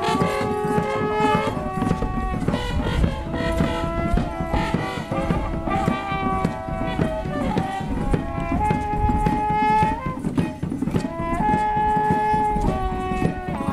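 Mapuche trutruka horns blowing long held notes that step between a few pitches, over steady ceremonial percussion from drum and rattles.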